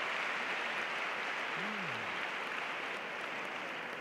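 Audience applauding steadily, dying away toward the end.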